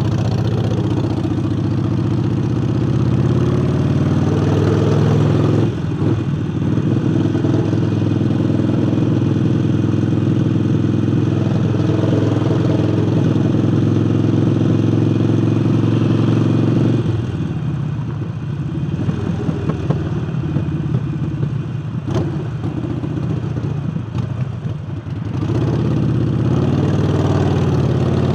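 Harley-Davidson Forty-Eight's air-cooled 1200 cc V-twin, fitted with a new air intake, running steadily under way. About 17 seconds in it drops to a quieter, easier run, and it picks up again a few seconds before the end.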